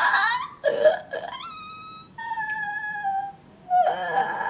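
A woman's high-pitched wordless squeals: after a couple of short yelps, three long drawn-out notes, the middle one sliding slightly down. She is squealing with excitement.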